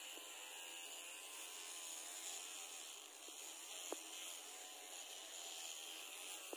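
Faint hum of a Flawless battery-powered facial hair remover running against the skin, its pitch wavering slightly, under a steady hiss. A single sharp click about four seconds in.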